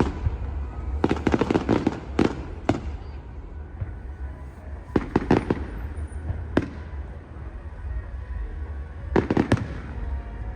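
Fireworks display: clusters of sharp bangs and crackles come in bursts, a second or so in, again about five seconds in and near the end, over a steady low rumble.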